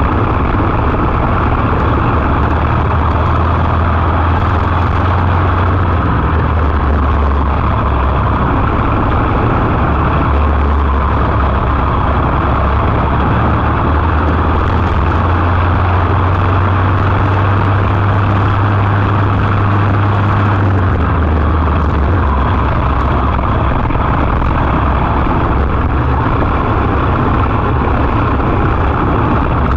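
Briggs & Stratton LO206 four-stroke single-cylinder kart engine running at racing speed, heard onboard close to the engine. Its pitch shifts up and down several times.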